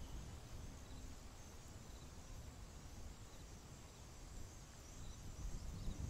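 Faint outdoor wetland ambience: a low rumble under soft, short high chirps that recur every second or so.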